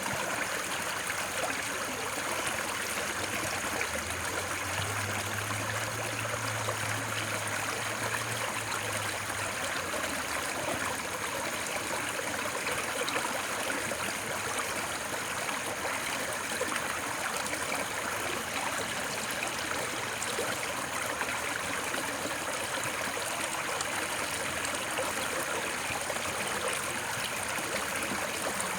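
Steady white noise for sleep: an even, unbroken hiss, strongest in the upper range, with a faint low hum between about four and ten seconds in.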